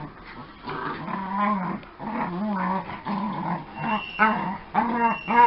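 Two small dogs growling at each other in rough play while they wrestle over a plush toy. The growls come in repeated short bursts that get louder toward the end, with a couple of brief high whines.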